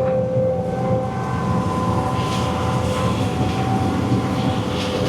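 Cat 320 EL excavator working: its diesel engine runs steadily under load with a whine from the hydraulics.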